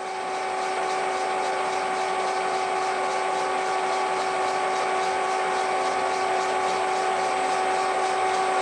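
Colchester 1800 geared-head lathe running at a steady speed, with a steady gear whine, while a tap held in the tailstock threads a Delrin part.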